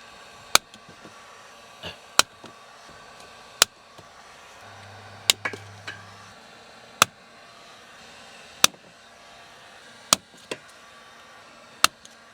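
Sharp clicks from a hand cutting tool with a new blade, about eight of them, roughly one every one and a half seconds.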